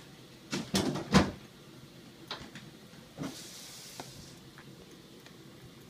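Small dog playing with a toy on carpet: a quick run of soft thumps and knocks about a second in, then a few scattered fainter knocks and a brief soft hiss.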